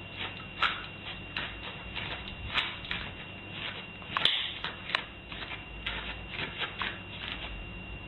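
A series of irregular light clicks and crunches, a few a second, over a faint steady high whine.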